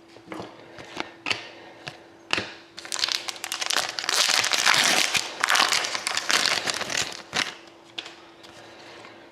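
Trading-card packaging crinkling as the cards are handled: a few sharp clicks at first, then a long stretch of dense crinkling that dies away with a couple of last clicks.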